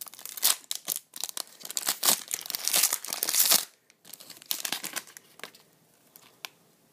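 Trading-card pack wrapper being torn open and crinkled: dense crackling for about three and a half seconds, a shorter burst after a brief pause, then it falls quiet with one small click near the end.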